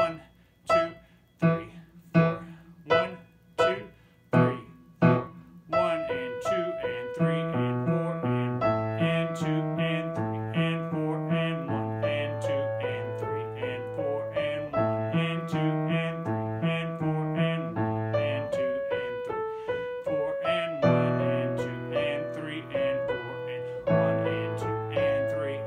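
Kawai KG-2D grand piano played at a slow practice tempo. For about the first six seconds it plays separate, detached strikes about two-thirds of a second apart, then a continuous run of notes with bass notes under a melody.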